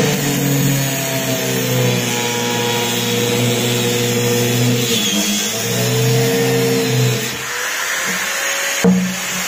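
Angle grinder with a cutting disc running and biting into the plastic case of a 6 V sealed lead-acid battery, its motor pitch dipping a few times as the disc is pressed in. A sharp click near the end.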